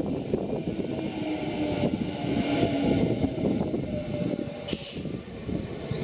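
Nankai Koya Line electric train running at Takidani station: a continuous rumble with faint steady tones running through it. A short, sharp hiss of air sounds a little before the end.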